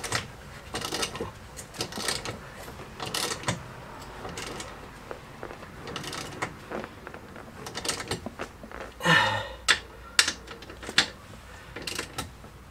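Ratchet wrench clicking in short bursts, with sharp metallic clicks as the anti-roll bar clamp bolts are tightened.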